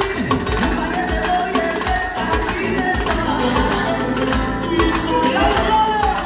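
Live manele band playing amplified dance music with a steady beat, a singer singing into a microphone over it.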